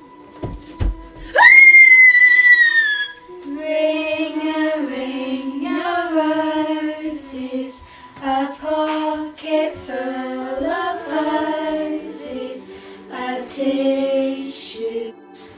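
A girl's high scream, jumping up sharply then trailing down over about two seconds, followed by young girls' voices singing a slow lullaby.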